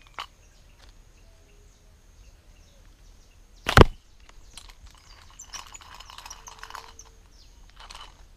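A fishing slingshot fired once at a tilapia, a single sharp snap of the released bands about four seconds in, followed by a few seconds of faint hissing with light ticks.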